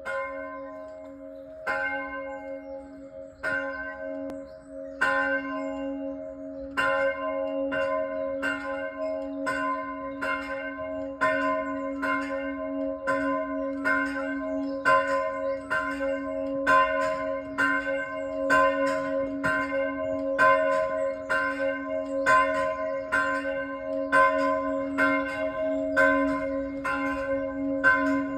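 Church bells being rung, heard from outside the church. At first single strokes come a couple of seconds apart, then from about seven seconds in a quick, even run of strokes, each left ringing into the next.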